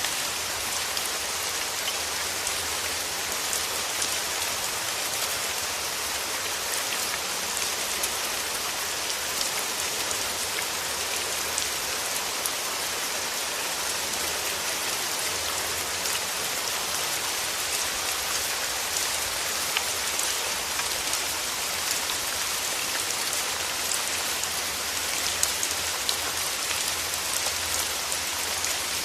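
Steady rain falling, a dense hiss of many drops with fine individual patters striking a surface.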